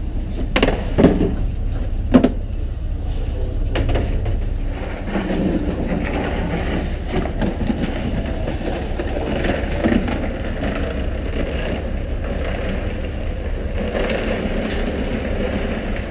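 Fishing boat's engine running with a steady low drone, with a few sharp knocks and some clatter in the first few seconds.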